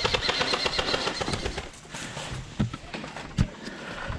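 Airsoft gun firing a rapid full-auto burst, about a dozen shots a second, that stops about a second and a half in. After it come a few separate sharp knocks.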